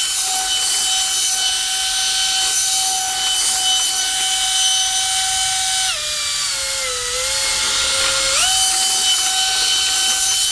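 Motor and propeller of a vectored-thrust RC bottle boat running with a steady high whine and a rush of air. About six seconds in the pitch drops and wavers lower for a couple of seconds, then jumps back up to the steady whine.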